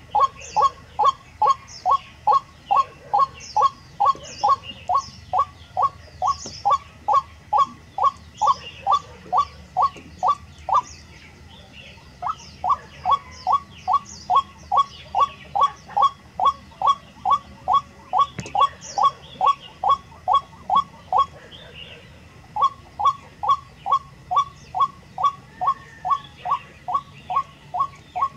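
White-breasted waterhen giving its monotonous repeated 'quốc' call, about three notes a second in long runs with two short breaks, roughly a third and three quarters of the way through. Faint chirping of small birds sounds above it.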